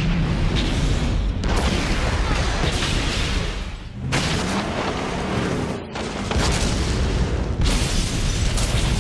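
Film-soundtrack explosions of a house being blown up: a continuous rumbling roar of blasts, with fresh booms breaking in about a second and a half in, around four seconds and near the end.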